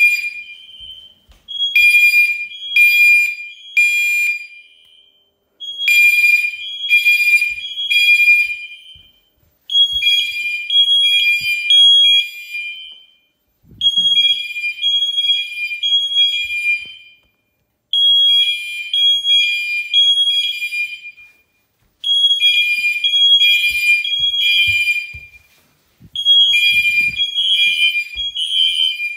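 Home fire alarm system's notification horns sounding in the temporal code-3 evacuation pattern after a smoke detector is set off in a test. The pattern is three short blasts and a pause, repeating about every four seconds. Soft footsteps can be heard underneath.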